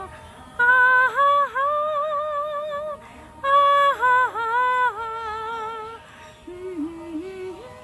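A woman singing a Bengali song unaccompanied, in long held notes with vibrato. Two strong phrases are followed near the end by a quieter, lower one.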